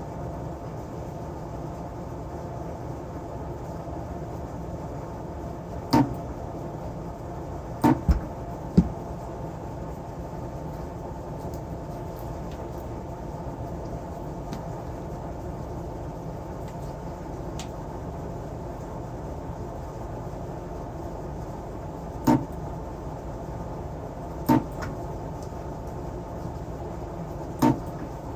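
Sharp clicks and knocks of tools being handled at a battery workbench, about seven spread irregularly through the stretch, over a steady low hum.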